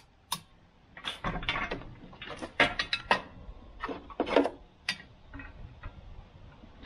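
Irregular metal clinks and knocks as a steel three-point quick hitch and the tractor's top link are handled and pinned together by hand, some clinks ringing briefly.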